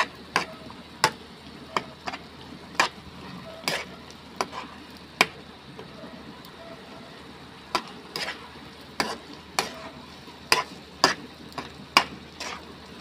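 Metal spoon scraping and knocking against a metal frying pan while stirring a thick tomato sauce, in irregular clinks with a short lull in the middle. A steady low sizzle from the simmering pan runs underneath.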